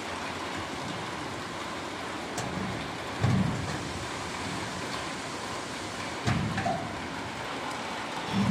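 Steady hiss with three dull thumps, about three seconds in, about six seconds in and at the very end: hands and tools knocking against the sheet-steel panels of a metal locker during assembly.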